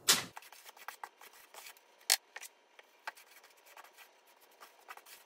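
Grout float spreading sanded grout over penny tile: faint, irregular scraping and small clicks, with a sharper click about two seconds in.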